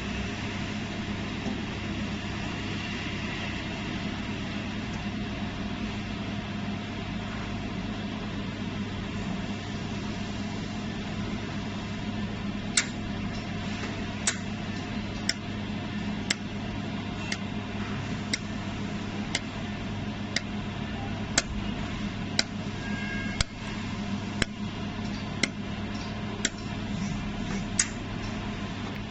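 Jewelry laser welding machine running with a steady cooling-fan hum; from about halfway through, sharp single clicks of laser weld pulses come roughly once a second.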